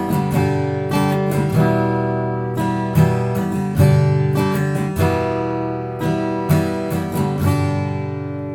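Background music: strummed acoustic guitar, ringing chords, with the strums fading toward the end.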